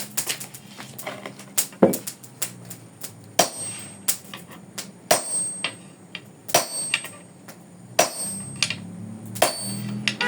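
Hammer striking automotive leaf spring steel being cut: heavy blows about every second and a half, lighter taps between them, each strike leaving a short metallic ring. A steady low hum runs underneath.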